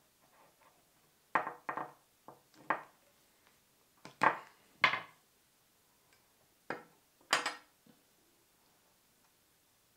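A thin metal tool clinking and knocking against a steel axe head and its wooden handle while paracord is tucked and tightened into a handle wrap. The knocks are sharp and irregular and come in small clusters, loudest about four to five seconds in, and they stop about eight seconds in.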